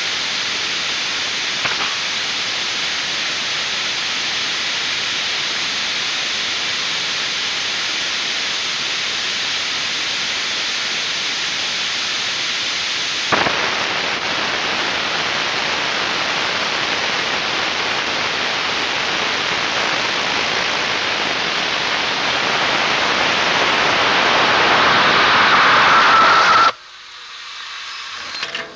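Hybrid rocket motor firing: a loud, steady rushing hiss with one sharp pop about halfway through. It grows louder with a whistling tone over the last few seconds, then cuts off suddenly at burnout or shutdown.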